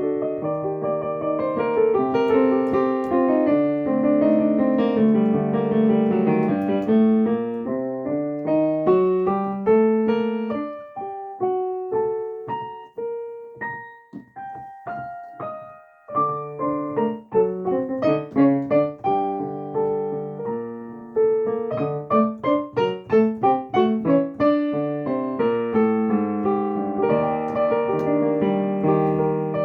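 Solo piano played freely, improvised, with full flowing chords. About a third of the way through it thins to a few sparse, ringing single notes, then picks up again with quick repeated notes and full chords.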